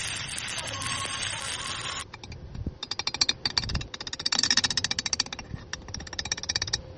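Stick (SMAW) welding arc crackling, a dense steady hiss and crackle at first. About two seconds in it changes suddenly to rapid crackling in short bursts with brief gaps.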